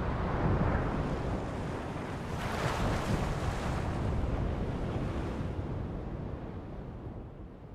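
A rushing sea-like wash of surf, swelling about two and a half seconds in and then fading out toward the end.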